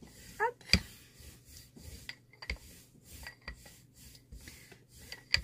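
Rubber brayer rolling acrylic paint back and forth over a gel printing plate: a tacky rubbing sound in repeated strokes, with a few sharp clicks.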